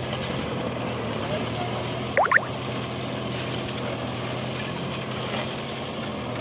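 Kubota tractor's diesel engine running steadily under load as it pulls a tillage implement through the soil. A brief, loud rising whistle cuts in about two seconds in.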